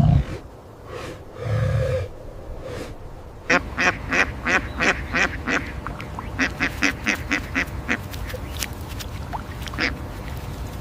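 Ducks quacking in a rapid run of short calls that starts about a third of the way in. Before it come two short, low sounds in the first two seconds.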